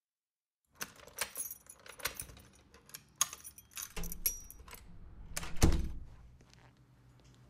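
A run of sharp metallic rattles, clicks and knocks starting about a second in, with a heavy thump about five and a half seconds in.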